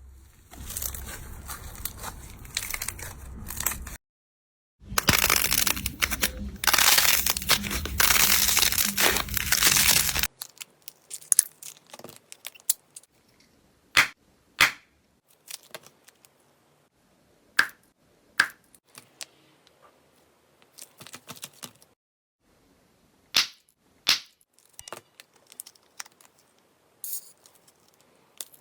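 Slime squeezed and pressed, making dense crunching and crackling for several seconds, broken by a short gap. After that come scattered sharp pops and clicks, one every second or so.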